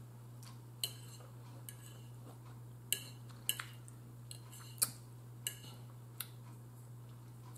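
A metal fork clinking and scraping against a ceramic bowl while food is picked up: a handful of short, sharp clicks spaced unevenly, about a second apart, over a steady low hum.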